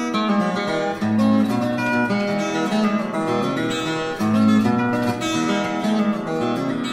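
Background music: an acoustic guitar picking a tune, a quick run of plucked notes over bass notes.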